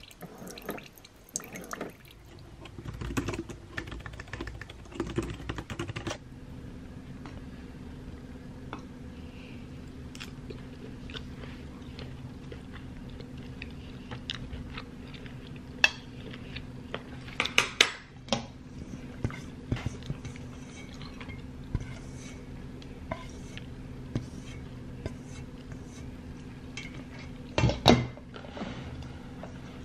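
Keurig coffee maker brewing into a mug for the first few seconds, with water hissing and pouring. Then fork or knife clinking on a ceramic plate, with some chewing, over a steady low hum; the loudest clinks come a little past halfway and near the end.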